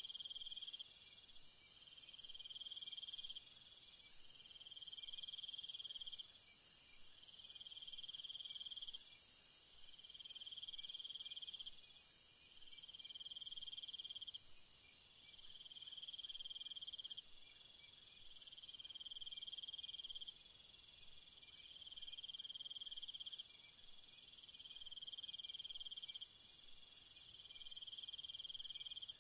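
Night insect chorus of crickets: a shrill, very high continuous chorus that fades somewhat in the middle and returns near the end, over a lower trill that repeats about every two seconds.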